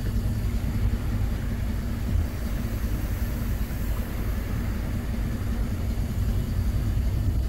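Steady low rumble of a steamship under way, with water rushing in its wake.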